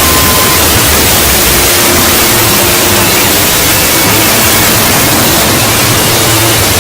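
Loud, steady static hiss filling the whole range, with faint steady tones showing through it now and then: a harsh noise sound effect.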